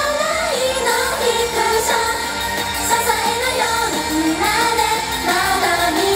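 Japanese idol pop song performed live: female idol singers sing into microphones over a backing track with a steady beat.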